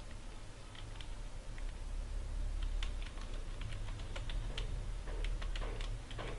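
Computer keyboard typing: irregular, quick key clicks over a faint low steady hum.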